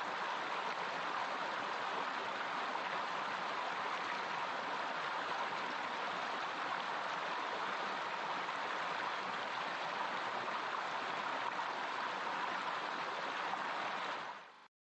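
Waterfall water rushing in a steady, even stream of noise, fading out quickly near the end.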